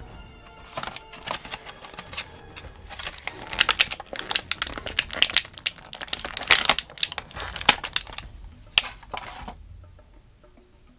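Clear plastic blister bubble crinkling and crackling as hands handle it, a dense run of sharp crackles starting about a second in and stopping near the end.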